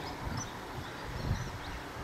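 Small birds chirping in short high notes over a low rumble that swells and fades a few times, loudest a little past the middle.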